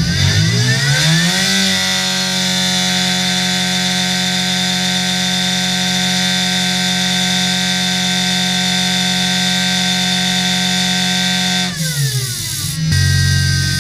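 Supercharged 998cc BMC A-series four-cylinder engine with a 5-port head and AMR500 supercharger, running loud on an engine dyno. It revs up over the first couple of seconds and holds a steady high speed for about ten seconds; near the end the revs drop briefly, then climb again.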